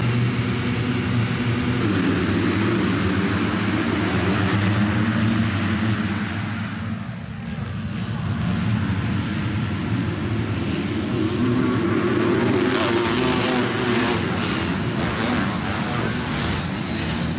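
A pack of motocross bikes racing off the start, many engines running together. The sound falls back a little about seven seconds in and builds again as the bikes come through the first turn.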